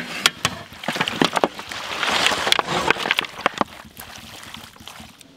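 Raw goat meat pieces tumbling off a steel tray into a large aluminium vessel: a run of knocks and clatter, then a wet rush of sliding meat that is loudest about two seconds in and eases off by about four seconds.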